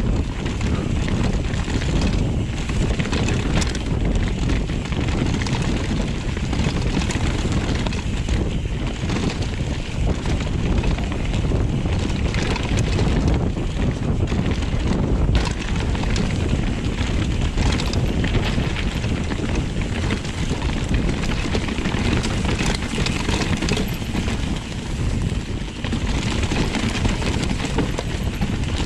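Mountain bike riding fast down a dirt forest trail: a steady rumble of tyres over dirt and roots, with the chain and frame rattling, and wind buffeting the microphone.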